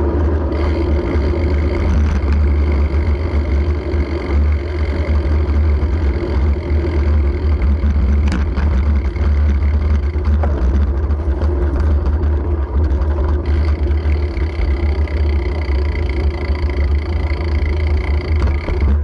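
Bicycle riding noise through an action camera mounted on the bike: a loud, steady low rumble of road surface and frame resonance, with a brief knock about eight seconds in.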